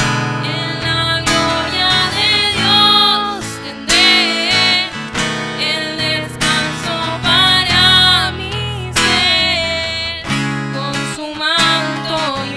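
Church worship song: strummed acoustic guitar and bass under a singing voice with a wavering melody.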